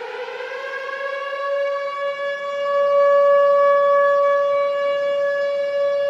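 Flint Firebirds' hockey goal horn sounding one long blast. Its pitch rises as it winds up over the first two seconds, then holds steady and loud.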